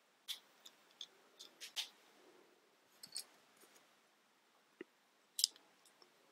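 Plastic building bricks clicking and knocking together as they are handled and snapped into place, a dozen or so irregular sharp clicks.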